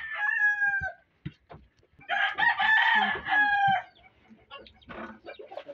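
A rooster crowing twice: the end of one crow, falling in pitch, about a second in, then a full crow of nearly two seconds.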